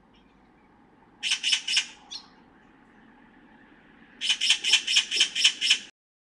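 Oriental magpie giving its harsh, chattering alarm call at a stray cat: a burst of three rasping calls, then a faster rattle of about eight calls in a row near the end.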